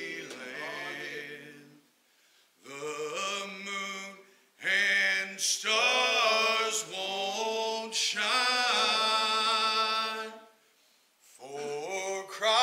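A small group of voices singing unaccompanied, in held phrases with short breaks between them and a fuller, louder passage in the middle.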